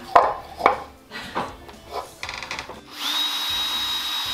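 Cordless drill with a 5/16-inch bit boring through the center of a plastic end cap set on a wooden board. A few knocks come first, then about three seconds in the motor spins up to a steady high whine as the bit cuts.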